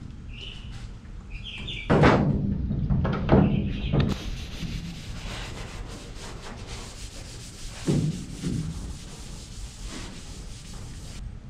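A towel rubbing hard over the sanded metal and filler of a pickup bed's rear corner, wiping it clean before body filler goes on. A few knocks come near the start and again about 8 s in.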